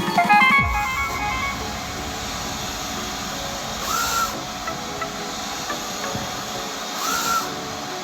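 Mimaki UJF-3042MkII UV flatbed printer running with a steady hiss, and two short whines that rise and fall in pitch about four and seven seconds in.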